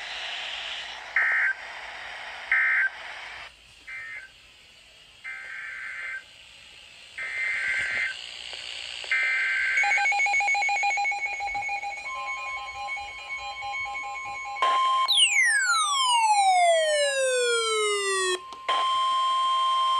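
Emergency Alert System tones: a run of short, chirping data bursts, then steady held alert tones, with a long falling whistle-like glide partway through. This is the electronic lead-in to the next broadcast warning.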